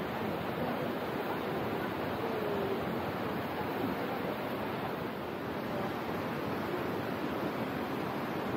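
Steady rush of Kegon Falls, a tall waterfall plunging into its basin, heard as an even wash of noise.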